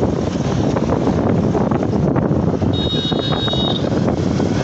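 Ride in an open-sided auto-rickshaw on a highway: steady engine and road rumble with wind buffeting the microphone. A short high-pitched tone sounds for about a second, about three seconds in.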